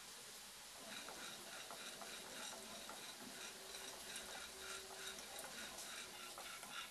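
Raw peanuts dry-roasting in a nonstick frying pan, stirred with a wooden spatula: faint quick clicks of the nuts and spatula against the pan, starting about a second in.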